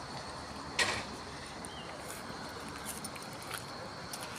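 Steady outdoor background noise with a faint high steady tone, and one sharp click a little under a second in.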